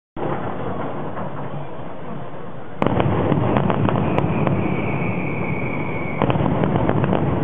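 Fireworks finale: many aerial shells bursting and crackling together in a continuous barrage. It gets suddenly louder about three seconds in with rapid sharp reports, and again near the end. A steady high whistle runs for about two seconds in the middle.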